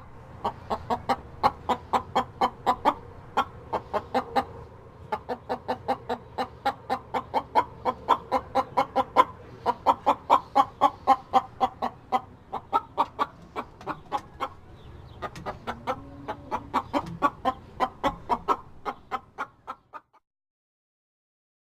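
Domestic hen clucking in a long run of short, quick clucks, about four a second, with a few brief lulls. It stops about twenty seconds in.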